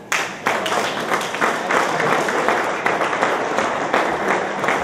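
Audience applauding: dense clapping from many hands breaks out suddenly and keeps going steadily.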